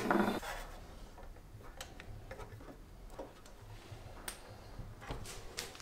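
Faint, scattered light clicks and taps of the printer's metal frame parts being handled while its pre-installed frame bolts are tightened by hand.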